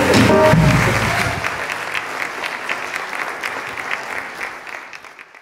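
Audience applauding as the band's last chord dies away in the first second or so. The clapping then fades out steadily toward the end.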